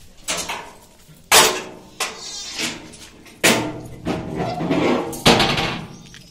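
Sojat goat kids bleating, a run of about seven or eight loud, sudden calls, some with a wavering quiver.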